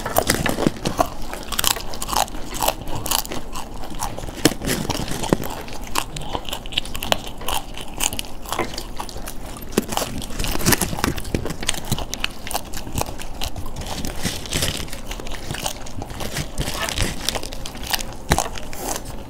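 People chewing and biting mouthfuls of churmur, crushed crisp fried puri mixed with spiced potato, giving many irregular crisp crunches.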